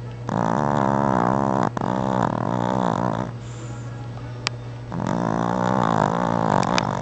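Chihuahua snoring in her sleep: two long, wavering, pitched snores of about three seconds each, with a pause of about two seconds between.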